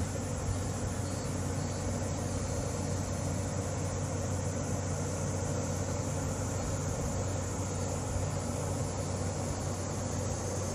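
Steady low machine hum of a ventilation blower, as of the air conditioning that feeds a large flexible air duct, running evenly without change.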